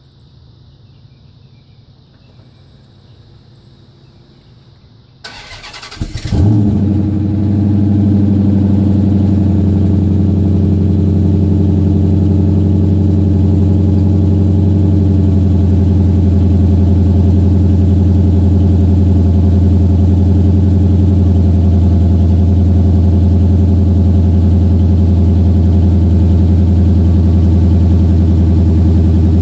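2014 Dodge Charger R/T's 5.7-litre Hemi V8 through a Dynomax aftermarket exhaust, started from cold. After a few quiet seconds the starter cranks briefly, the engine catches about six seconds in with a short rev flare, then settles into a steady, loud cold idle.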